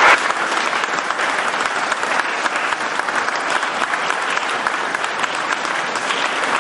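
Congregation applauding, many hands clapping at a steady level.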